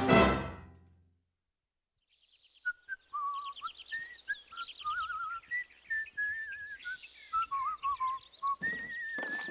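A brass music sting dies away in the first second. After a short silence, birds chirp and warble in whistled trills, with quicker high twitters in between.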